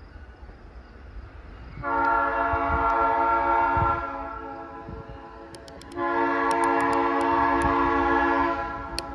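A diesel locomotive's air horn, on the ALCO S2 switcher, sounds two long blasts of about two seconds each, a few seconds apart, over the low rumble of the passing train.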